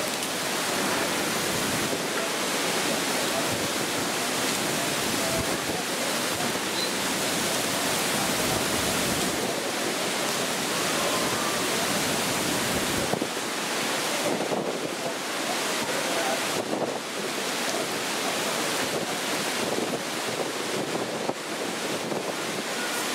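Steady, even rushing noise with no distinct calls or knocks; the deep rumble underneath drops away about thirteen seconds in.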